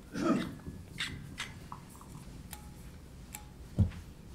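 Handling noise from a handheld microphone being passed between people: a brief rustle at the start, a few scattered clicks, then a dull low thump near the end.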